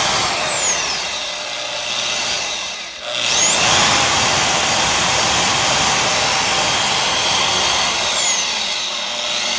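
Milwaukee portable band saw running at low speed with no cut: its whine rises as it spins up at the start and falls away over about two seconds, then it spins up again about three seconds in, holds a steady high whine for about four seconds, and winds down near the end.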